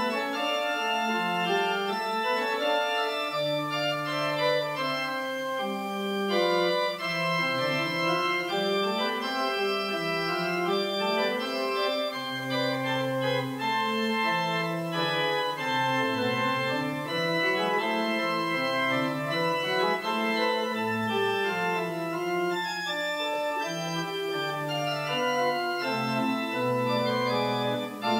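Church pipe organ playing, with sustained chords over a slowly moving bass line.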